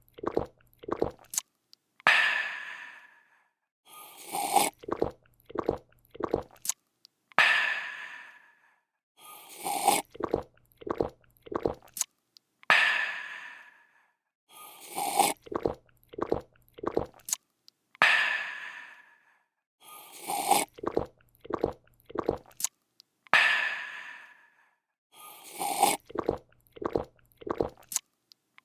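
A person drinking in a repeating loop: a slurp, a few quick gulps, then a long satisfied 'aah' exhale. The cycle comes round about every five seconds, five times over.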